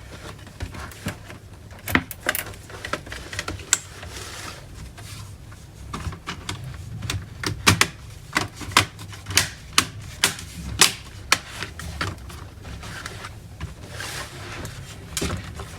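Plastic laptop palm-rest (C panel) being pressed down onto the base, its clips snapping in with a series of sharp, irregular clicks that come thickest in the middle stretch.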